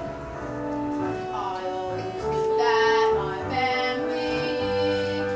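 A song from a stage musical: voices singing held notes over instrumental accompaniment.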